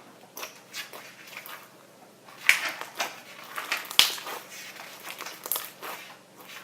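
Floam slime being squeezed and worked by hand, crackling and crunching irregularly as the foam beads are pressed, with two sharp pops about two and a half and four seconds in.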